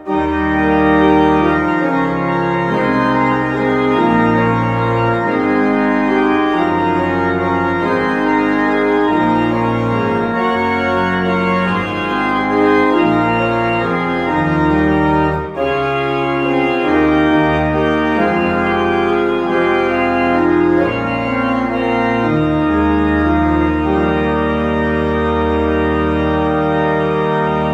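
Church organ playing a slow piece in sustained chords over low pedal bass notes, with a brief break between phrases about halfway through, closing on a long held chord.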